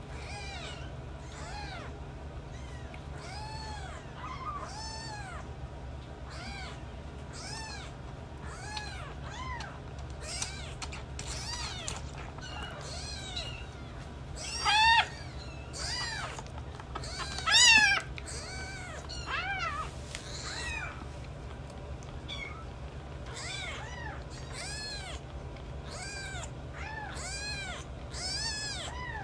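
Very young bottle-fed kitten mewing over and over: short, high mews that rise and fall in pitch, about one a second, with two louder cries about halfway through.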